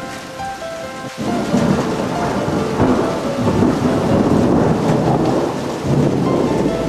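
Thunder rumbling over steady rain, swelling about a second in and staying loud throughout.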